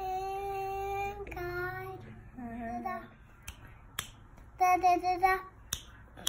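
Young girl singing a melody in long held notes, phrase by phrase, the loudest phrase in the second half. A few sharp clicks fall between the phrases.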